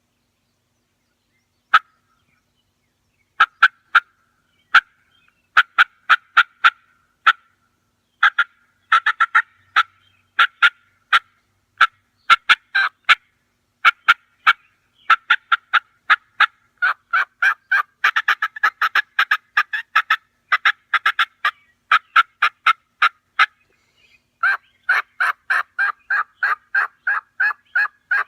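Two-reed batwing diaphragm mouth call blown to imitate a hen turkey. It gives short single notes at first, then longer strings of quick notes, ending in a fast run of about a dozen.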